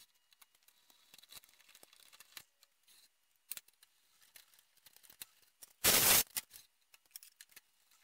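Light clicks and scrapes of a square steel tube being handled and positioned at a drill press, with one loud half-second rush of noise about six seconds in.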